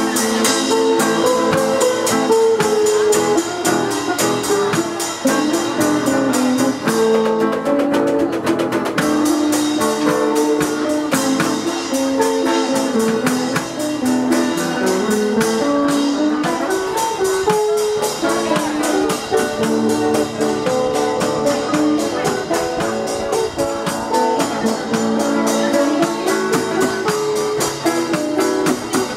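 Live band playing a tune on electric and acoustic guitars, with a steady drum beat and cymbal from a small drum kit.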